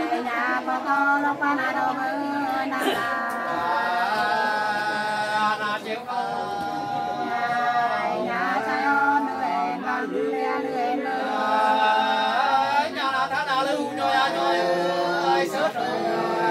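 Women's voices singing hát sli, the Nùng antiphonal folk love song, unaccompanied, in long held notes that slide between pitches.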